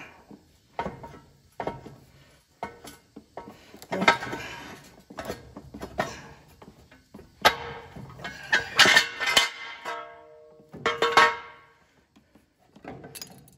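Metal knocking and clanking as the loose half of the Massey-Ferguson 175's front axle is worked and struck free of its pivot housing. Irregular knocks, the loudest a cluster a little past halfway and another about four-fifths in, each leaving a ringing metallic tone.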